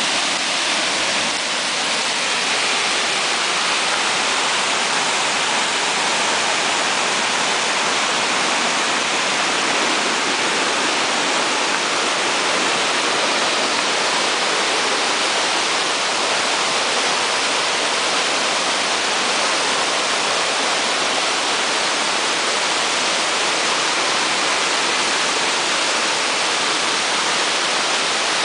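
Small creek in flood, swollen with storm runoff, rushing loudly and steadily as white water over rocks and small drops.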